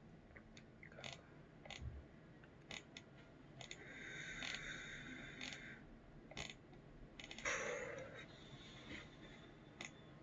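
A person breathing out hard, a long hissing exhale about four seconds in and a heavier breath a little before eight seconds, against faint scattered clicks and small handling noises, as he copes with the burn of a superhot chili pepper.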